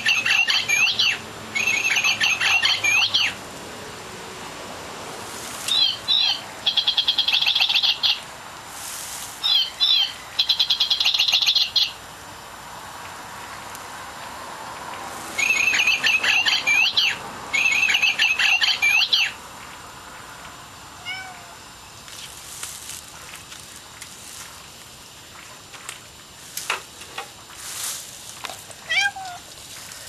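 Mechanical singing-bird cage toy chirping in loud bursts of rapid, repeated high trills, about six bursts that start and stop abruptly in the first twenty seconds. After that it falls quieter, with only a few faint short calls.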